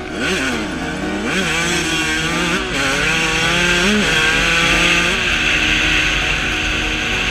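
Two-stroke dirt bike engine being ridden, its pitch climbing and dropping several times as the rider works the throttle, then holding higher and steadier for the last couple of seconds.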